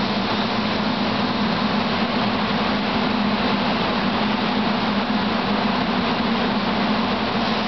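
Steady electrical hum and air noise of a SEPTA Silverliner IV electric railcar idling close by, unchanging throughout.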